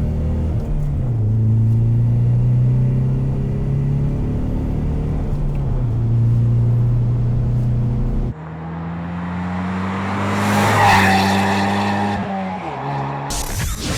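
The 2.3-litre turbocharged four-cylinder of a 2015–2017 Ford Mustang EcoBoost running through a Ford Racing by Borla Sport cat-back exhaust, in several edited takes. For about eight seconds the engine holds a steady note with small swells in pitch. After a sudden cut, a second take rises and falls with a loud hiss about ten to twelve seconds in. Near the end a third take starts as the revs climb quickly.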